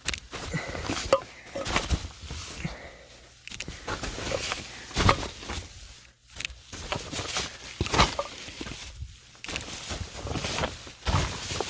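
A person crawling over a plastic moisture-barrier sheet laid on the ground, the plastic crinkling and rustling under knees and hands with irregular scrapes and thumps, a couple of them sharper.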